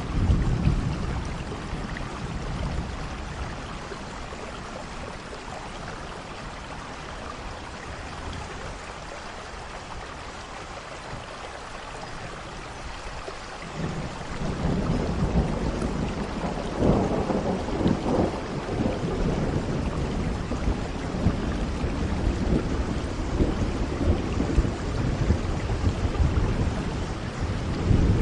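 Steady rain with rolling thunder: a deep rumble fades in the first few seconds, then a long roll of thunder builds about halfway through, peaks soon after, and keeps rumbling, with another surge near the end.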